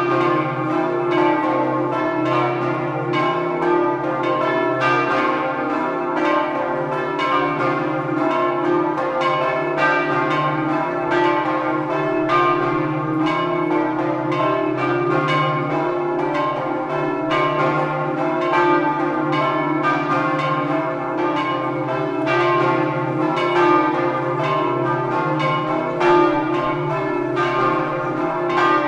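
Several church bells in a bell tower ringing together in a continuous full peal, strokes following one another several times a second over a sustained ringing hum: the midday peal.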